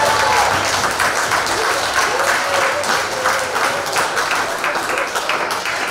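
Audience applauding steadily, a dense patter of many hands clapping, with a few voices faintly over it.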